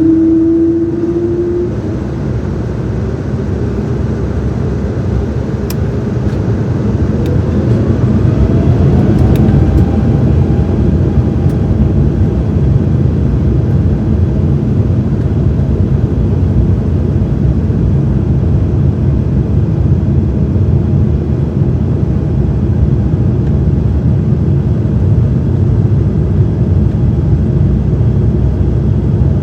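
Cabin sound of an Embraer 195-E2's geared turbofan engines during takeoff: an engine whine rises over roughly the first ten seconds and then holds steady above a heavy, steady rumble, with a few faint rattles.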